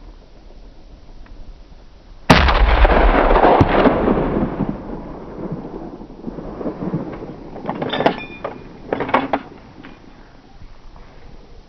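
A single rifle shot about two seconds in, its report rolling and echoing away over about three seconds. A few short sharp clicks with a metallic ring follow about eight to nine seconds in.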